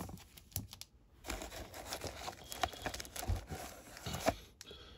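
Crumpled packing paper rustling and crinkling as a plastic-slabbed graded card is pulled out of a cardboard shipping box, with a few light clicks of hard plastic card cases being handled.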